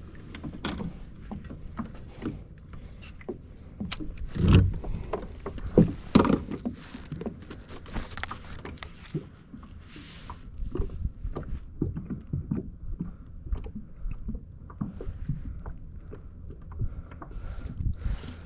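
Irregular knocks, bumps and rattles on a fishing kayak as a just-landed bass and gear are handled aboard, with two louder thumps about four and a half and six seconds in.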